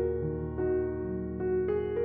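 Soft background piano music, single notes changing about every half second over a held bass.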